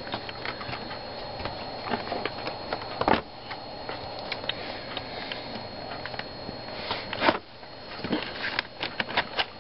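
Panasonic Toughbook CF-47 laptop starting up: a steady low hum with scattered clicks, and two louder knocks about three seconds and about seven seconds in, over a steady high-pitched whine that the camera gives off.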